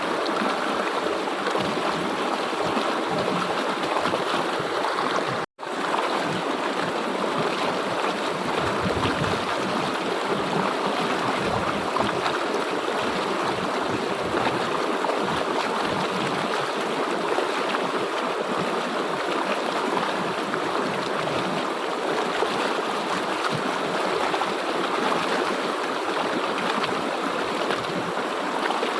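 River water flowing steadily, a continuous rush of a stream. It cuts out for an instant about five and a half seconds in, then carries on unchanged.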